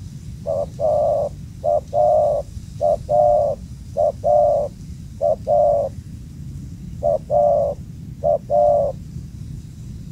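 Spotted dove (tekukur) cooing: seven phrases, each a short note followed by a longer one, about once a second with one longer pause near the middle, over a steady low rumble.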